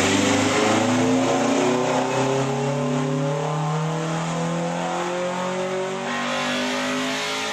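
Car engine accelerating, its pitch climbing slowly and steadily through one long pull.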